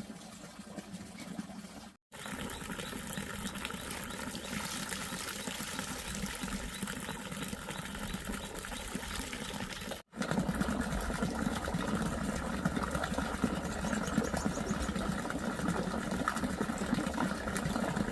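Water running and splashing as a child washes her hands and feet, a steady sound broken by two brief silent cuts and louder after the second one.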